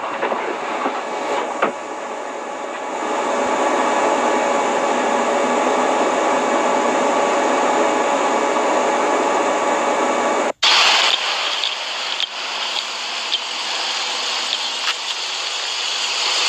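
Steady hiss and static of a police camera's background recording noise, with faint steady tones in it. It drops out for an instant about ten and a half seconds in and comes back brighter and hissier.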